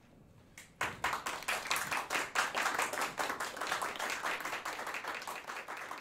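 Small audience applauding, the clapping starting abruptly about a second in after a short quiet and thinning slightly near the end.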